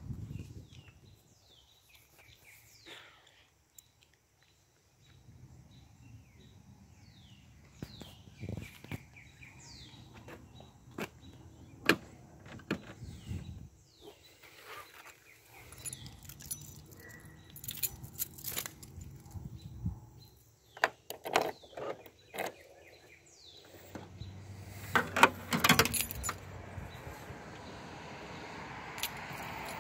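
Keys jangling and a run of sharp clicks and knocks as the rear tailgate of a 1991 Honda Accord wagon is unlatched and swung up, loudest near the end. Birds chirp in the first half.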